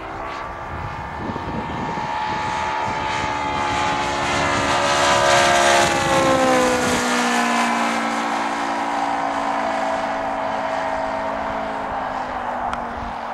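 ASP 400 radial engine of a radio-controlled model F4U Corsair, running in flight as the model makes a pass: the engine note swells to its loudest about six seconds in, then drops in pitch as the plane flies away.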